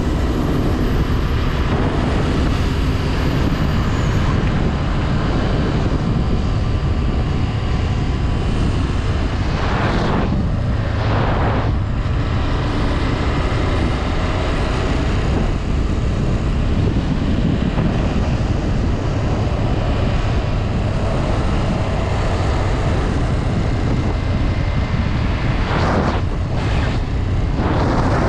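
Honda Twister 250F single-cylinder motorcycle engine running steadily while riding, with wind rushing over the helmet microphone; twice a brief surge of rushing noise.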